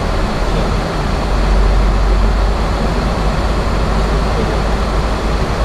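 Steady rushing cockpit noise of a Boeing 737-800 in flight, airflow and system hum with a deep rumble underneath that swells for a second or two near the middle.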